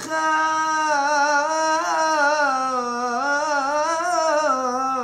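A man chanting Torah cantillation in the Constantine Jewish tradition, drawing one syllable out into a long unbroken melisma whose pitch wavers and climbs a little twice before settling lower near the end.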